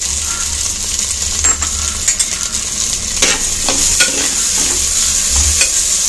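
Chopped tomatoes and browned onions sizzling in hot oil in an earthenware pot, with a steady sizzle. From about a second and a half in, a ladle stirs them, scraping against the clay at irregular strokes.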